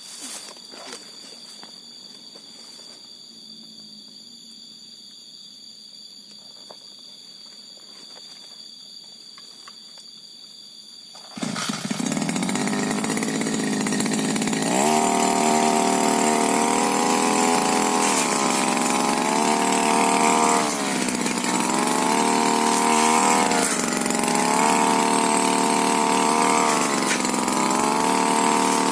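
Tiger TG328 two-stroke brush cutter engine running and revving up and down over and over as it cuts through brush. It comes in abruptly about eleven seconds in, after a quieter stretch of faint steady high-pitched tones.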